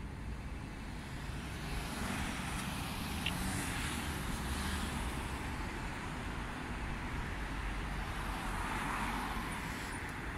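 City street traffic: a steady rumble of passing cars, swelling twice as vehicles go by.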